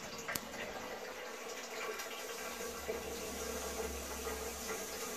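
Water running steadily into an old high-level toilet cistern as it refills, with one sharp click about a third of a second in.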